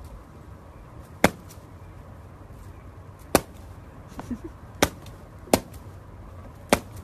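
Five sharp, brief clicks or knocks at uneven intervals of one to two seconds, over a low steady hum.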